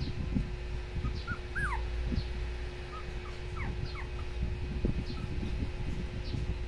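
A puppy whimpering: a string of short, high, squeaky whines, most of them in the first four seconds.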